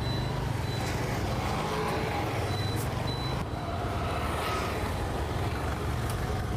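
Motorcycle engine running steadily while riding along a town road, with wind and traffic noise. A faint high-pitched beep comes and goes in the first half.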